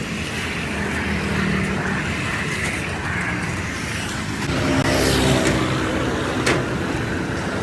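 Road traffic: motor vehicle engines running steadily, one vehicle passing louder a little past the middle, and a single sharp click near the end.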